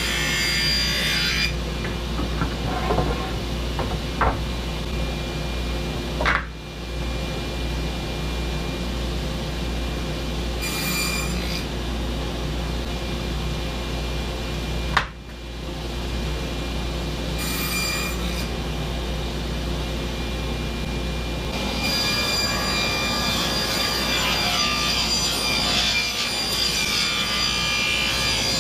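Table saw running steadily while 2x4 boards are fed through it to cut rabbets. The cutting noise comes in short passes at the start and at about 11 and 18 seconds in, then one long cut over the last several seconds, with a couple of knocks from boards being handled a few seconds in.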